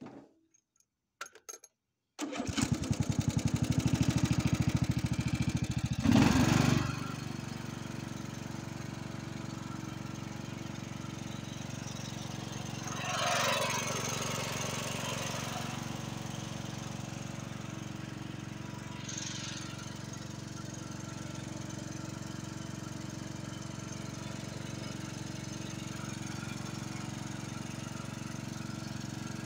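Craftsman riding lawn mower being started with its key: a few clicks, then the electric starter cranks the engine for about four seconds until it catches with a surge and settles into steady running. The engine note swells briefly about halfway through.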